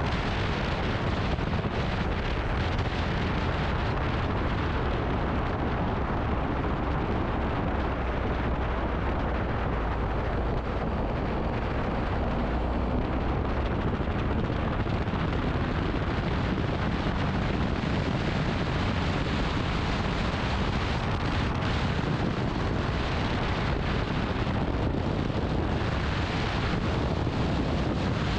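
Wind rushing over the microphone together with a motorcycle engine running at a steady cruise, a constant low rumble with no changes.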